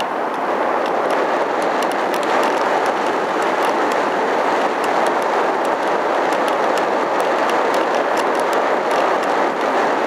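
Steady rushing of air and propeller noise from an electric RC plane in flight, picked up by the camera riding on the plane. Faint scattered high ticks sound over it.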